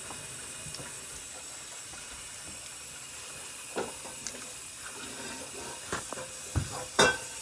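A steady hiss, broken by a few short clicks and knocks; the loudest knock comes near the end.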